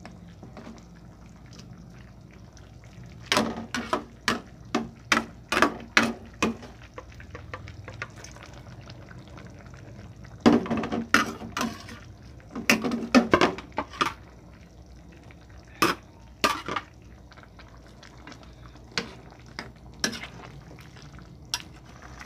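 A utensil stirring a pot of pork and vegetable soup, clinking and scraping against the pot in several bursts of quick knocks, over the steady bubbling of the simmering broth.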